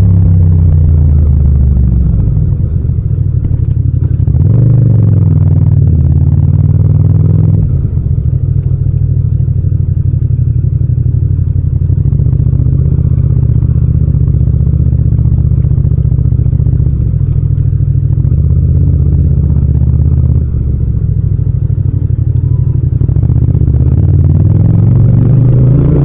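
Yamaha MT-07's 689 cc parallel-twin engine running as the bike is ridden, a steady low exhaust note. It revs up about four seconds in, eases off around eight seconds, and picks up again near the end.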